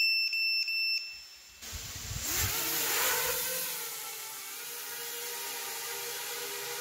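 A short run of high electronic beeps. Then, about a second and a half in, the FPV quadcopter's Mamba 2204 1450 kV brushless motors with 5-inch props spin up with a rising whine and a rush of air as it lifts off. It settles into a steady hovering hum.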